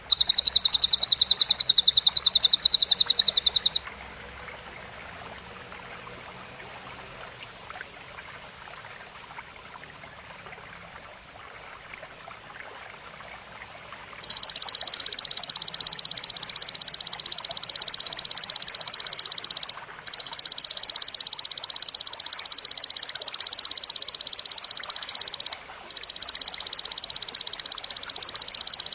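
High, rapid, dense buzzing trills of cililin and belalang (grasshopper) training material. One trill ends about four seconds in. After a stretch of faint hiss, a long one starts about halfway through and breaks off briefly twice.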